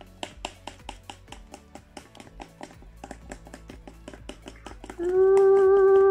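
Whisk beating pancake batter in a bowl: rapid, regular clicks of about five or six a second. About five seconds in, a loud steady pitched whine starts and lasts about a second and a half, louder than the whisking.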